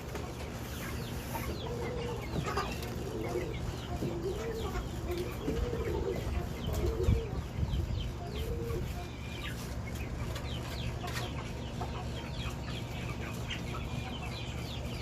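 Birds calling: a run of low calls that rise and fall from about two to nine seconds in, with many short high chirps throughout.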